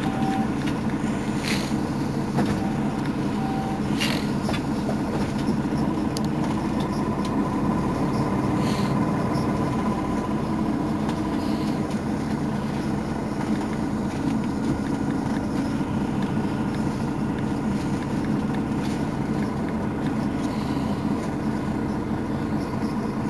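Mercedes-Benz Citaro bus's diesel engine running steadily, with a few short high beeps in the first few seconds.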